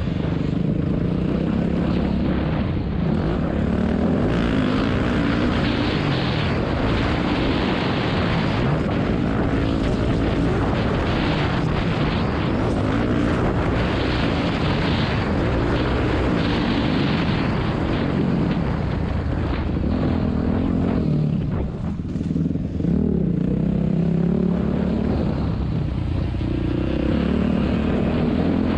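On-board sound of a dirt bike's engine running under way, its note rising and falling with the throttle as the bike accelerates and slows. It briefly eases off about two-thirds of the way through.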